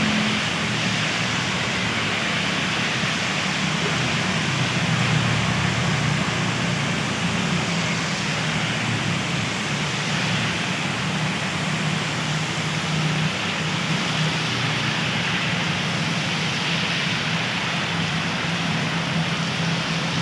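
Steady rain falling, an even hiss, over a low steady hum.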